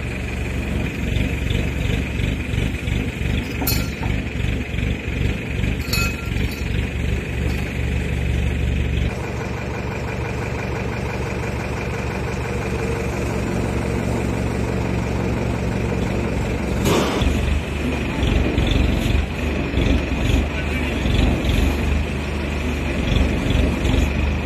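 Diesel engine of an ACE FX150 pick-and-carry crane running with a steady low throb as it lifts a load, growing louder from about seventeen seconds in.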